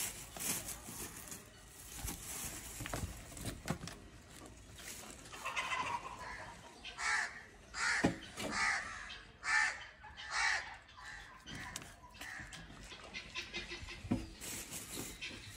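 Birds calling: a run of about six loud calls, roughly one a second, in the middle of the stretch, over fainter background bird sound.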